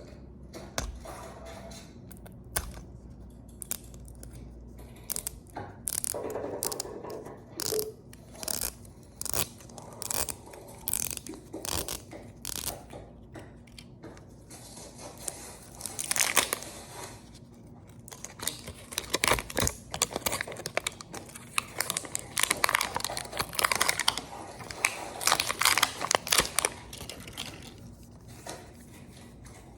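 Plastic toy packaging being handled, torn open and crinkled by hand: an irregular run of short clicks, crackles and rustles, busiest in the second half.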